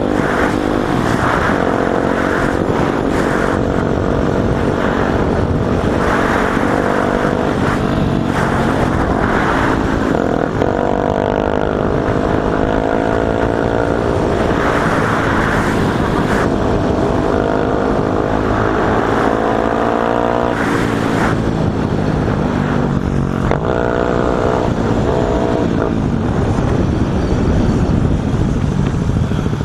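Motorcycle engines heard from a helmet camera while riding, the pitch rising as the bike accelerates and dropping back at each gear change, several times over, with steady wind noise on the microphone.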